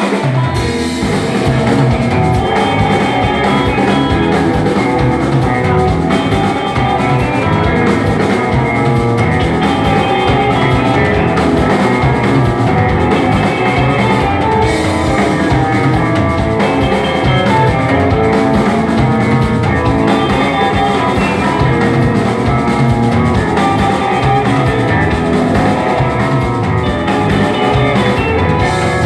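Rock band playing live: electric guitars, bass guitar and drum kit, continuously and without a break.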